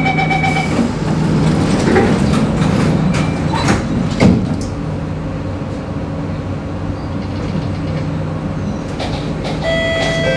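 Singapore MRT train doors closing: the door-closing chime beeps at the start, the doors clatter as they slide shut and meet with a thud about four seconds in, then the train runs with a steady hum. Several new steady tones start near the end.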